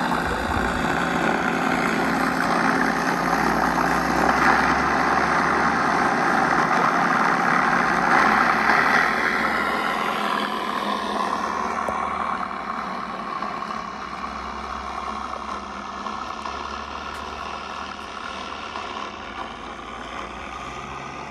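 FMS 1450mm electric RC P-51 Mustang model running with its onboard engine sound effect, giving a steady simulated piston-engine sound over the motor and propeller. About ten seconds in the pitch falls and the sound grows quieter.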